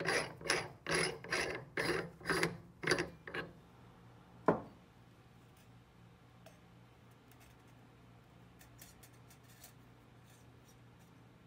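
Knurled stainless steel chamber lid of a critical point dryer being unscrewed by hand after the run: its metal threads rasp in a quick series of turns, about seven, for the first three and a half seconds. A single sharp knock follows about a second later, then faint light clicks as the specimen cage is handled.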